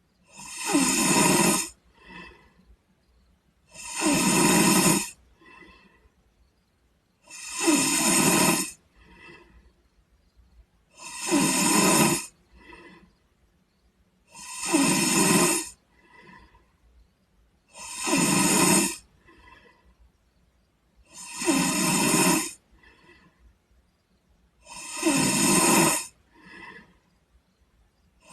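A sleeping boy snoring steadily: eight loud snores, one about every three and a half seconds, each lasting a little over a second and followed by a short, fainter breath.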